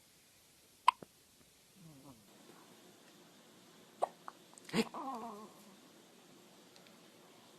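A baby hiccupping: short, sharp hiccups, the loudest about a second in and more around the middle, with small falling voice sounds from the baby between them.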